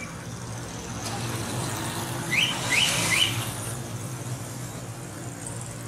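Steady low hum of a vehicle engine, with three quick rising chirps about halfway through.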